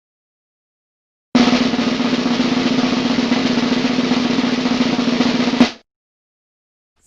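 Snare drum roll: a fast, even roll lasting about four seconds, ending in a single sharp hit.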